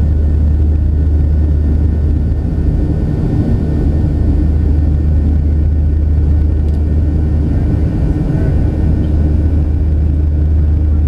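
Boeing 737 jet airliner heard from inside the cabin while climbing after takeoff: the turbofan engines and rushing airflow make a loud, steady, deep drone.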